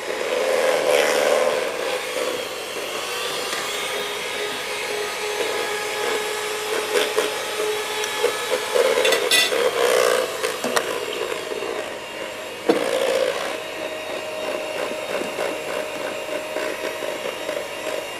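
Electric hand mixer running steadily, its beaters whirring and scraping through thick mascarpone and egg-yolk cream in the bowl. There are a couple of sharp knocks, the clearest about two-thirds of the way through.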